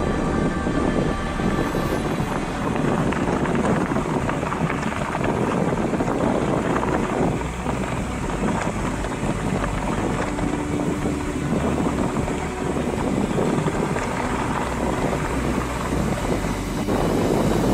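Steady engine rumble and road noise of a moving vehicle heard from on board, with some wind noise.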